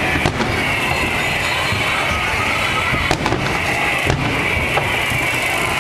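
Fireworks going off: a dense, steady crackle with three sharp bangs, one just after the start and two more about three and four seconds in.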